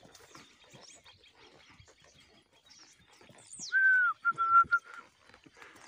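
Loud whistle about four seconds in: a short note that bends down, then a held note broken into a few short pieces. Faint high bird chirps come before it.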